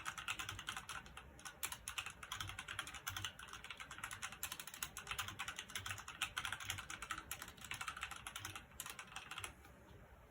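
Rapid typing on a Redragon Kumara K552 mechanical keyboard with red linear switches: a dense run of key clacks that stops near the end.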